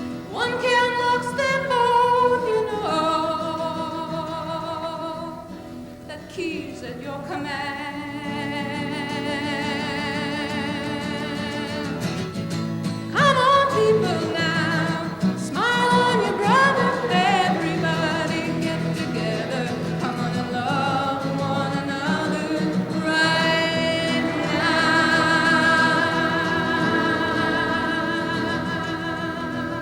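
A woman singing with a strummed acoustic guitar, sliding up into long held notes sung with vibrato.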